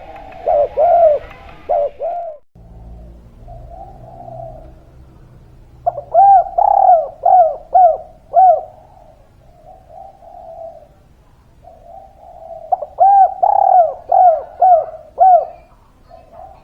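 Spotted dove (tekukur) cooing. There are three loud bouts of quickly repeated, arched coo notes, near the start, about six seconds in and about thirteen seconds in, with softer, lower coos between them.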